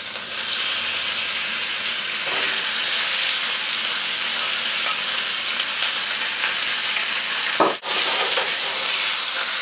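Bone-in chicken pieces sizzling as they go into hot oil and browned garlic in a stainless steel pan, moved about with a wooden spatula. The steady sizzle cuts out for a moment just before eight seconds in, then carries on.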